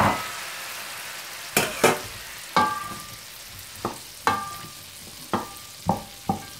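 Wooden spoon stirring vegetables frying in a stainless steel pan: a steady sizzle with a series of sharp knocks of the spoon against the pan, several leaving a brief metallic ring.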